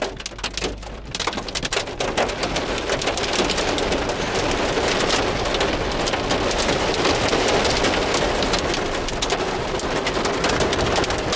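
Heavy rain pelting the car's roof and windshield, heard from inside the moving car: a dense patter of drops that grows heavier about two seconds in and stays heavy, over a steady low road rumble.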